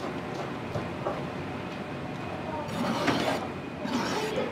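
Kitchen work sounds: utensils and cookware clattering, with a couple of louder bursts of noise about three and four seconds in.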